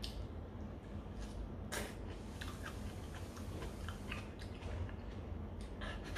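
A person chewing and smacking a mouthful of food close to the microphone, with scattered wet clicks and one louder smack about two seconds in, over a low steady hum.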